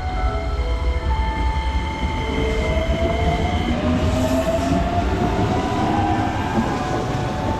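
Keikyu electric train running past with a steady low rumble, and a motor whine that rises in pitch through the middle.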